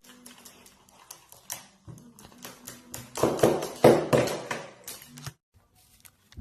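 A rapid, irregular series of clicks and taps, loudest about three to four and a half seconds in, over a faint steady hum. It stops a little after five seconds.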